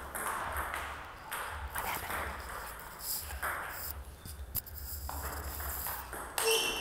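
Table tennis ball clicking off the players' bats and bouncing on the table during a rally, over a low steady hum.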